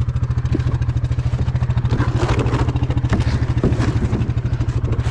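A small engine running steadily at an even speed, with a few light knocks and clatter over it.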